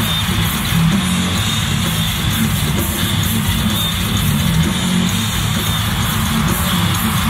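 Live heavy metal music played loud: electric guitar over a drum kit, with a steady run of cymbal strokes.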